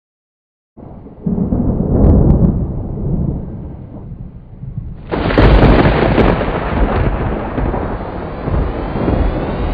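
Thunder sound effect: a rumble rolls in about a second in and fades, then a sudden, louder crack of thunder about five seconds in rolls away slowly.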